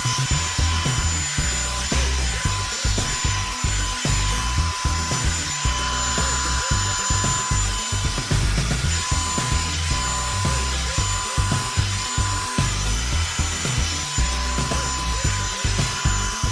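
Revlon One Step hair dryer brush running on its high setting: a steady fan hiss with a thin, constant high whine. Irregular low rubbing and bumps come from the brush dragging through hair.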